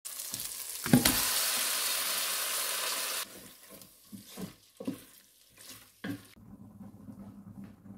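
Raw chicken pieces dropped into hot oil and onion-tomato masala in a steel pot, setting off a loud sizzle about a second in that cuts off abruptly after about two seconds. Then a wooden spoon stirs the chicken, with short scrapes and knocks against the pot, and a faint low steady hum near the end.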